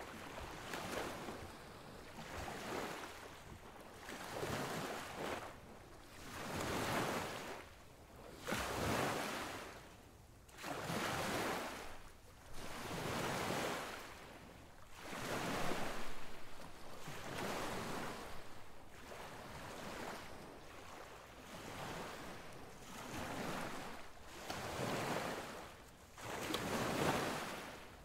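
Surf breaking and washing up a wide sandy beach: a rushing noise that swells and fades every couple of seconds, with some wind.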